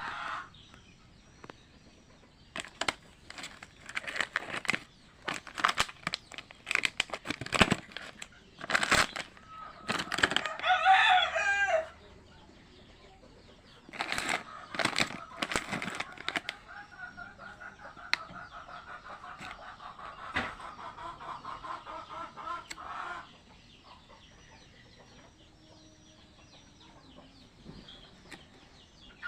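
Chickens: a rooster crows once, about ten to twelve seconds in, among many short sharp clicks and knocks. A rapid pulsing sound follows from about seventeen to twenty-three seconds in.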